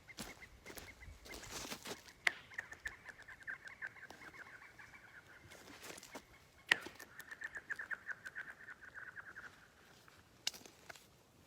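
Rock skipped across frozen lake ice, twice: each sharp crack as it lands is followed by about three seconds of rapid, high chirping pings as it skitters away over the ice.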